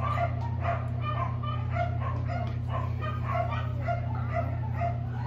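Week-old English Teddy Bear Goldendoodle puppies whimpering and squeaking, short high cries about twice a second, over a steady low hum.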